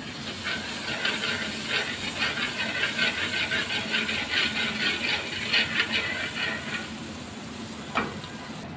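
Chopped garlic sizzling in hot olive oil in a frying pan, with a steel ladle stirring through it; the crackly stirring eases off about seven seconds in, leaving the steady sizzle, and a single knock comes near the end.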